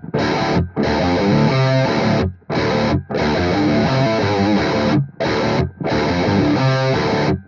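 Distorted electric guitar playing a heavy riff in 7/8 time. It comes in phrases broken by short stops.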